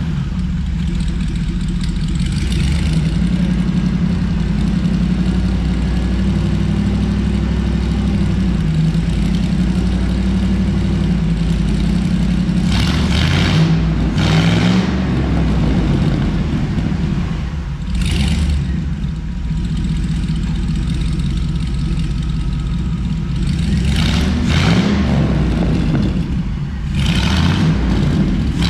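V8 engine of a freshly built 1955 Chevrolet 3100 rolling chassis running through its Heartthrob exhaust: a steady low idle, revved up briefly a few times.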